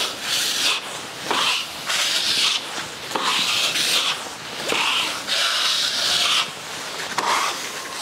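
Small steel drywall knife spreading joint finisher over a plasterboard wall: repeated scraping swishes, roughly one stroke a second.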